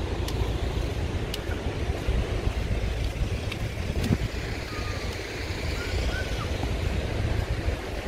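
Wind buffeting the microphone over a steady wash of ocean surf, with a few short faint chirps about two-thirds of the way through.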